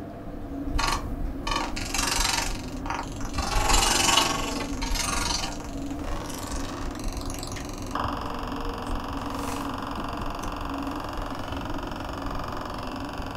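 Film sound effects: short bursts of hissing noise and a stuttering crackle, then a steady electronic buzzing drone from about eight seconds in.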